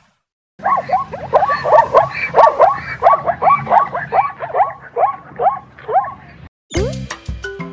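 An animal giving a rapid series of short barking calls, about three a second, which stops after about six seconds. Bright marimba music starts near the end.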